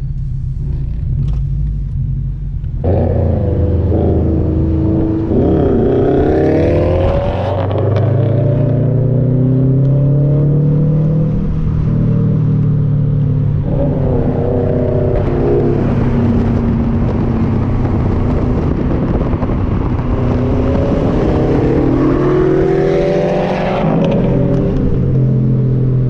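Subaru WRX STI's turbocharged flat-four with an aftermarket cat-back exhaust, loud and rumbling, accelerating hard. About three seconds in it jumps from a low rumble to full throttle. Its pitch climbs and drops back several times, with big pulls early, mid-way and near the end.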